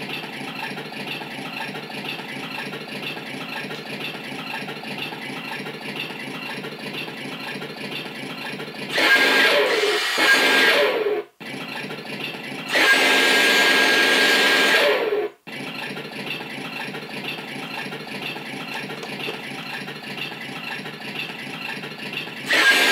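Mattel Ultimate Justice League Batmobile remote-control toy playing an engine idling sound effect through its speaker. Twice, about nine and thirteen seconds in, a louder sound effect with a high steady whine plays for a couple of seconds and then cuts off suddenly, and another starts near the end.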